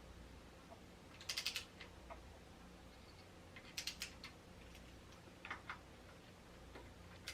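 A ratchet wrench clicking in four short bursts of rapid clicks as bolts on the handlebar clamp are worked.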